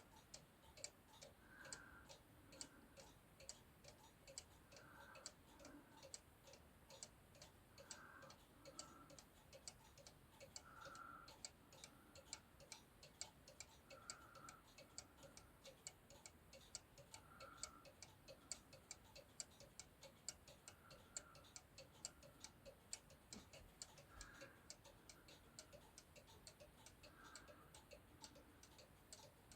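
Cuckoo clock ticking faintly and evenly, its pendulum escapement beating a steady rhythm.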